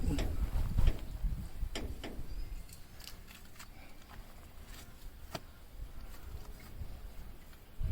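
Scattered light clicks and knocks, several close together over a low rumble in the first second, then single sharp ticks every second or so.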